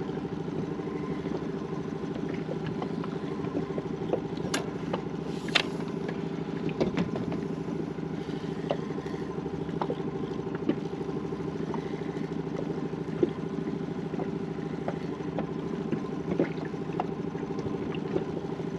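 Steady low engine hum, like a motor idling, with a few scattered light clicks and knocks.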